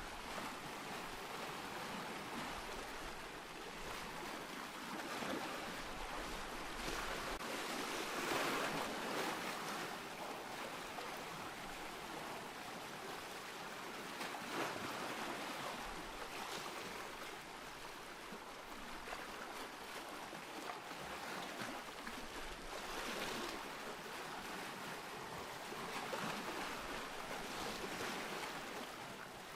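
Ocean surf: waves washing in and falling back, the hiss swelling with each wave every few seconds, loudest about eight seconds in.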